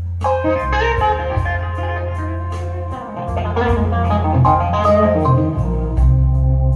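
Recorded blues music played back through hi-fi bookshelf speakers: a guitar over a steady bass line and a regular beat.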